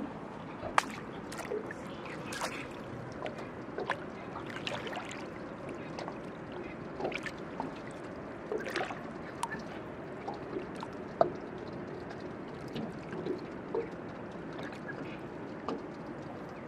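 Water lapping and trickling around a landing net held in the water as bream are released, with scattered light clicks and splashes and two sharper knocks, about a second in and about eleven seconds in.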